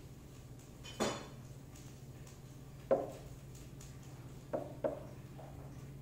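A drinking glass of milk knocked and clinking as a cat reaches its paw into it: a sharp tap about a second in, another near the middle, and two quick ones close together later, each ringing briefly, over a steady low hum.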